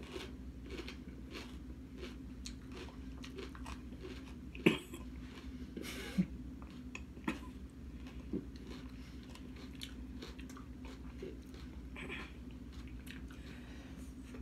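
Chewing raw green jalapeño pepper close to the microphone: a run of small crisp crunches and mouth clicks, with a few louder crunches in the middle, over a low steady hum.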